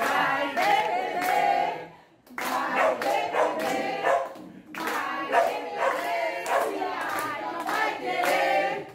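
A small group of people singing a birthday song together and clapping along in time, with a short break about two seconds in.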